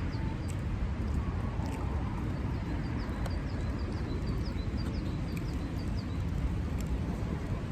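Steady low outdoor rumble, with a small bird chirping in a quick run of short, faint high notes a few seconds in.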